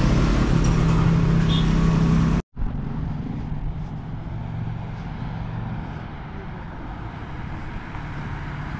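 A lorry's engine idling close by, a steady low hum that cuts off suddenly about two and a half seconds in. After a moment of silence, quieter road traffic noise.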